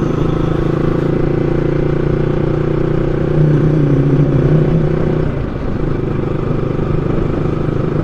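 Motorcycle engine running at low road speed with a steady hum. The note swells about three and a half seconds in, then eases off at about five seconds.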